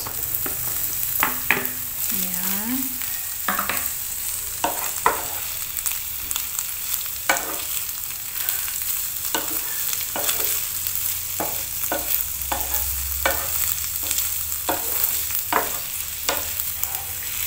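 Chicken strips frying in hot oil and butter in a nonstick pan with shallots and garlic, sizzling steadily. A wooden spatula stirs them, scraping and knocking against the pan about once a second.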